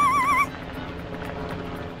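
A warbling whistle, wavering quickly up and down in pitch, cuts off about half a second in. After it comes a steady low hum with a faint hiss.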